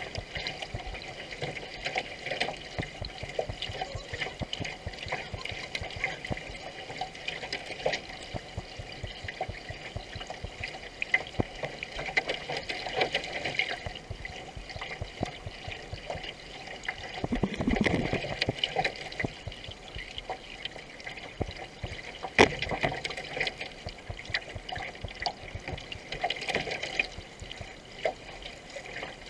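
Water rushing and splashing along a racing canoe's hull, with the small splashes of paddle strokes dotted through it. Partway through there is a louder, deeper rush of water, and later a single sharp knock.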